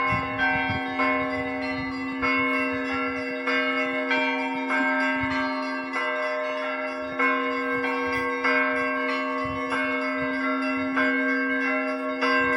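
Russian Orthodox cathedral bells ringing: several bells struck in a repeating pattern, with a main stroke about every second and a quarter and lighter strikes between, over a steady low hum from a larger bell.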